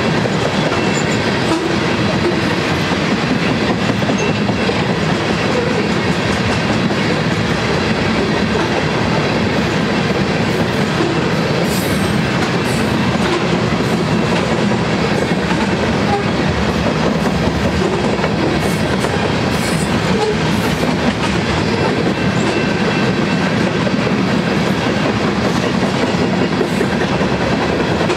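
Loaded coal train's hopper cars rolling past: a steady rumble and clatter of steel wheels on the rails.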